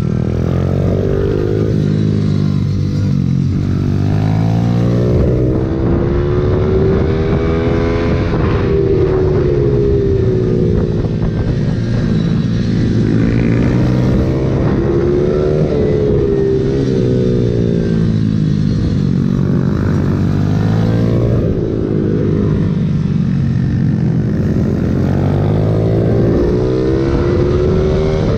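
Pit bike's single-cylinder engine ridden hard round a track. The revs climb and fall in long sweeps every few seconds as it pulls out of corners and backs off into the next.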